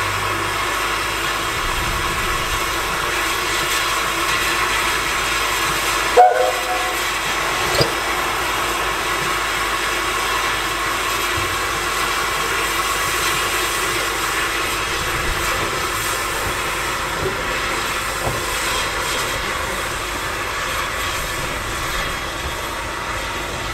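NGG16 Garratt steam locomotive hissing steadily with escaping steam as it pulls slowly away. It gives a short whistle toot about six seconds in and a briefer one near eight seconds.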